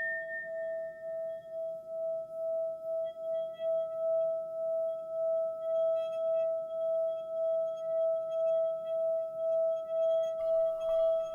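Tibetan singing bowl (Om bell) being rubbed around its rim, holding one steady ringing tone that pulses in a slow wobble. The tone builds gradually, with higher overtones joining after a few seconds.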